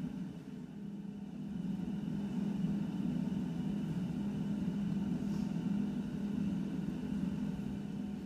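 A steady low hum, fairly loud, with no clear rhythm or breaks.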